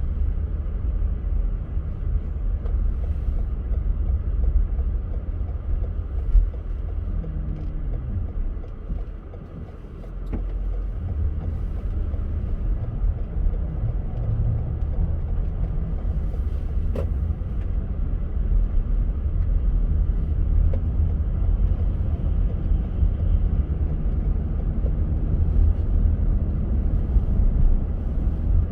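Car driving on a snowy road: a steady low rumble of tyres and engine. It drops quieter about nine seconds in, and the engine note rises and falls a few times.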